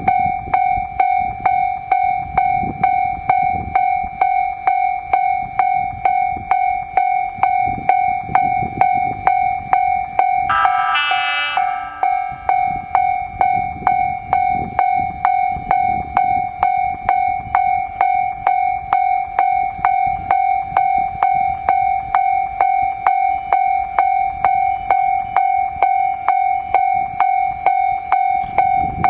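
Japanese level-crossing warning bell ringing steadily, a clanging tone struck about twice a second. About ten seconds in, a train horn sounds once in a short blast.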